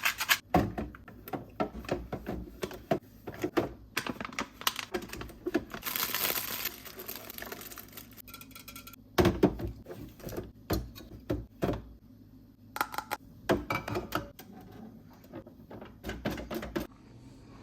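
Unboxing and handling a fridge safe: an irregular run of clicks, taps and knocks, with a noisy stretch of about a second and a half around six seconds in.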